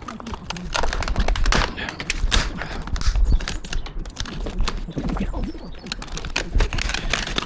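Rapid, irregular cracking and clattering of the old conservatory roof's brittle roof sheeting being broken up and pulled apart.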